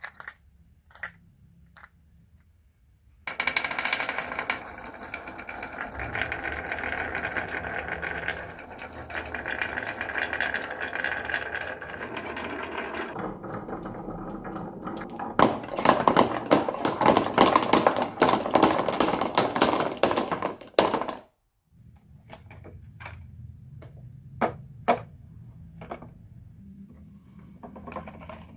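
Marbles rolling and clattering down a wooden marble run: a dense rattle of many clicks starts a few seconds in, grows busier and louder in the middle, then stops suddenly, followed by scattered single clicks.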